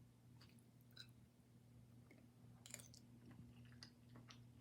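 Faint chewing of a mouthful of chicken stew, with a few soft mouth clicks over a low steady hum.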